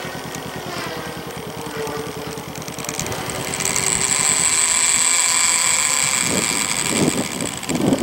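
Radio-control model airplane flying overhead: a steady engine drone, joined a few seconds in by a high whine that grows louder as the plane passes. Gusts of wind buffet the microphone near the end.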